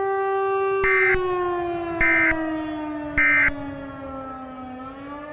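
Three short EAS end-of-message data bursts, the SAME 'NNNN' tones, about a second apart, over a siren tone. The siren holds steady, then slowly falls in pitch as it winds down, and the sound cuts off abruptly at the end.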